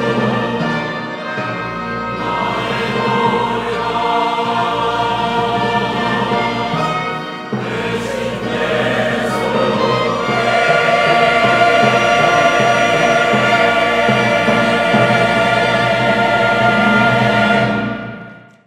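Large mixed church choir singing a Korean anthem with organ, piano and strings, rising to a loud, long-held final chord about ten seconds in that fades away near the end.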